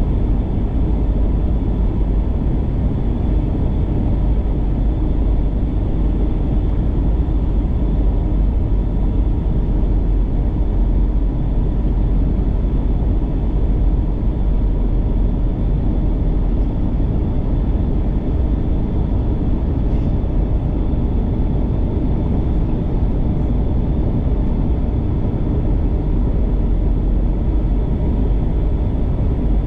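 Steady cabin noise inside an Airbus A321-211 airliner on approach to land: a loud, even rumble of airflow and engine drone, with a few faint steady tones.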